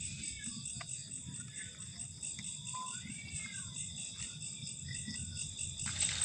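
Crickets and other night insects trilling steadily in a continuous high chorus, with a fast pulsing shimmer on top.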